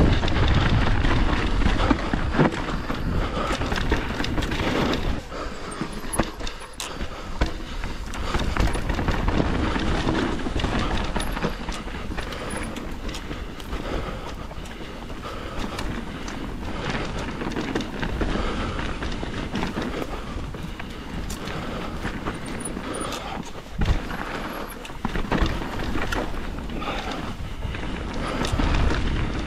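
Mountain bike riding down a rough trail: tyres rolling over dirt and rock with a steady rushing noise, and the bike rattling and clattering with many sharp clicks and knocks. It is loudest in the first few seconds.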